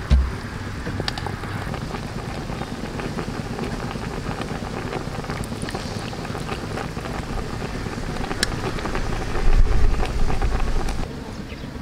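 Steady outdoor hiss with wind buffeting the microphone, a strong low gust about nine and a half seconds in that cuts off suddenly about a second later. A few light clicks from the metal ladle against the pot and the ceramic bowl as stew is ladled out.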